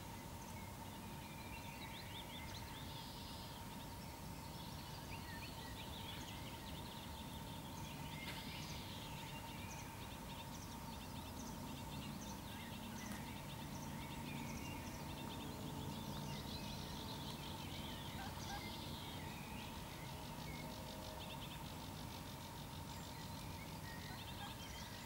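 Faint dawn birdsong: several small birds singing and chirping in overlapping short phrases and trills, over a thin steady tone. A low hum joins about ten seconds in and fades out about twenty-two seconds in.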